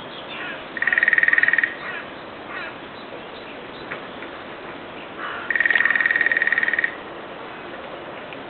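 Woodpecker drumming on a metal TV antenna: two fast rolls, the first just under a second long and the second about a second and a half, each making the antenna ring with a high metallic tone.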